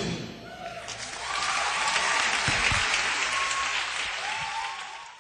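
Concert audience applauding and cheering right after the band stops playing, heard on an audience cassette recording. The applause swells about a second in, then fades away and cuts off near the end.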